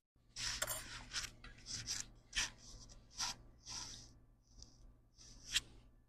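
Hand tools scraping and rubbing during bench work on a laptop logic board: about ten short, scratchy rasps at uneven intervals, the loudest near the end.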